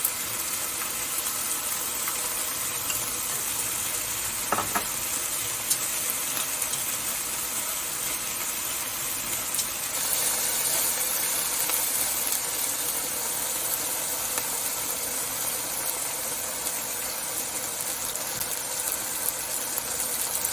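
Chicken pieces stir-frying in a hot pan: a steady sizzle, a little louder from about ten seconds in, with a few light clicks.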